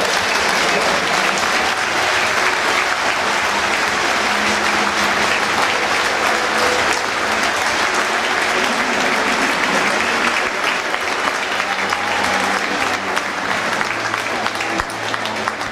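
Large stadium crowd applauding steadily, a dense, even clapping.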